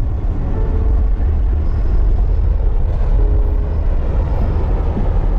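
Steady low rumble of engine and tyre noise from a car driving through a road tunnel, heard from inside the cabin.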